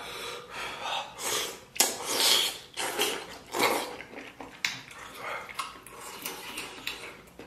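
Wet eating sounds: slurping and sucking on stewed pork intestine, then chewing, with smacking clicks. The slurps are loudest in the first few seconds and die down into softer chewing.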